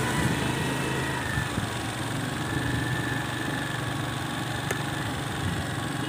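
Small petrol engine of a two-wheeler running steadily at low speed, heard from the rider's seat.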